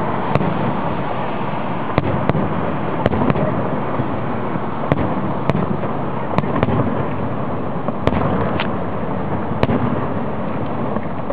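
Fireworks display: about a dozen sharp bangs at irregular intervals over a steady, dense rumble.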